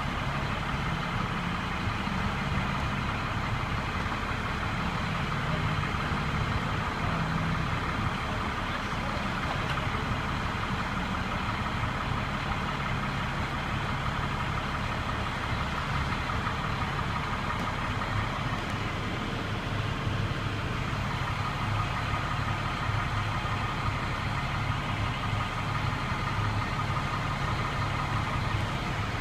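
A heavy vehicle engine running steadily at idle, with a faint steady whine that comes in a little past the middle.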